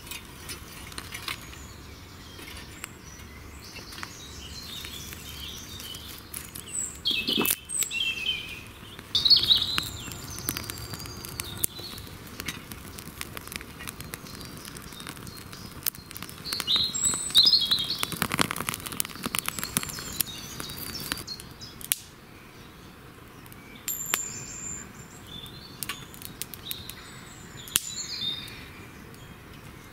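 Wild birds chirping and singing, loudest twice in passing phrases, over scattered small clicks and crackles from dry twigs being handled and catching in a small fire in a folding metal camp stove.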